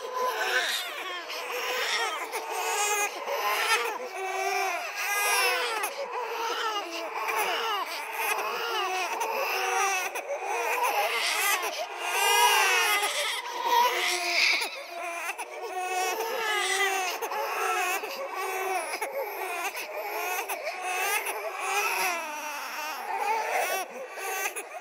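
Several babies crying at once, layered into a horror sound effect. Overlapping wails rise and fall in pitch without a break.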